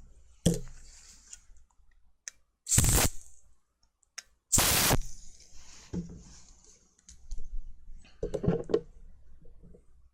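Handling noises at a workbench: scattered clicks and knocks, with two short harsh noises about half a second long, near three and five seconds in.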